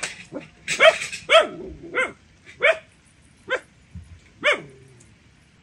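A dog barking: about eight short, sharp barks in an irregular series.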